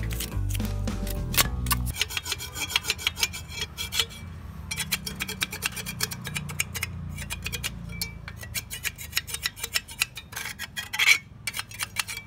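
Rapid rasping, scraping strokes, several a second, against the cast cement of a homemade stove, with one louder scrape near the end. Background music plays for the first couple of seconds.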